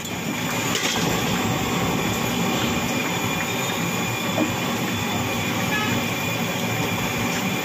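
Steady rumble of road traffic.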